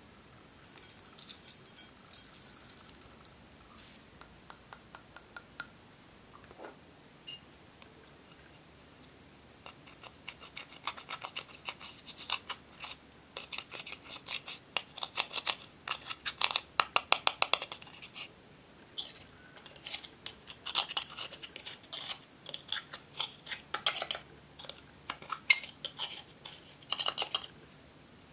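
A light rattle of sequins shaken out of a small glass bottle. Then, from about ten seconds in, a thin metal spatula scrapes and chips pressed eyeshadow out of a plastic palette: quick runs of dry, crumbly scratching and clicking, loudest in the second half.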